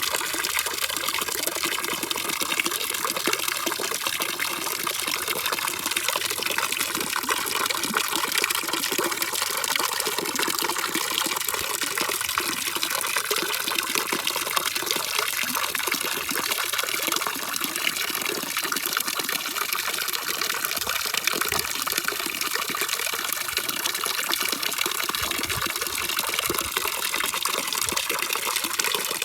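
Steady, even rushing of water, a constant hiss with no breaks or changes, used as white noise for sleep.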